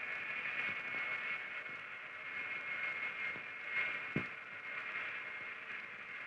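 Steady, high-pitched jet engine whine over a rushing hiss, with a soft thump about four seconds in.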